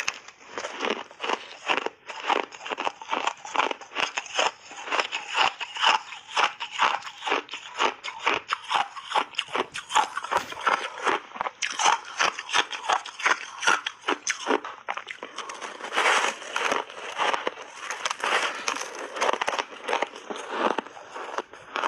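Refrozen ice being bitten and chewed in big bites: a dense, continuous run of sharp crunches and cracks, several a second.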